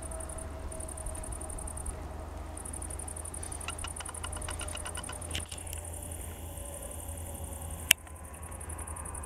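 Steady low outdoor rumble with faint scattered ticks, and one sharp click about eight seconds in.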